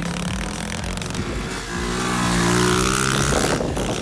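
Tao Tao 85cc pit bike engine revving hard, its note swelling and climbing about two seconds in, then dropping back near the end.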